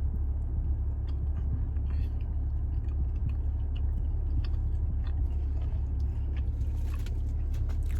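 A person chewing and biting food, with many small wet clicks, over a steady low rumble.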